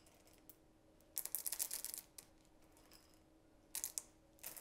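Small drops of tempered chocolate clattering as they are tipped in to seed melted chocolate for tempering. One rattle lasts just under a second about a second in, then two brief rattles come near the end.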